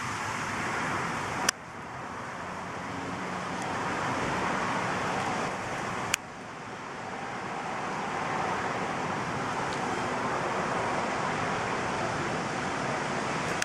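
Steady rushing noise of a thunderstorm's wind and rain, with two sharp clicks, about a second and a half in and about six seconds in, each followed by a drop in level.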